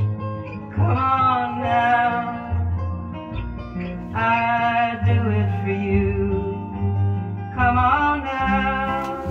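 Folk song with guitar playing from a vinyl record on a turntable, its melody coming in three phrases over a steady bass and chords.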